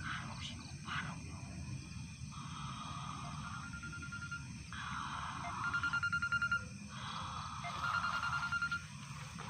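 A mobile phone's electronic ringing tone, sounding as repeated trilling rings of about two seconds each with short gaps between them.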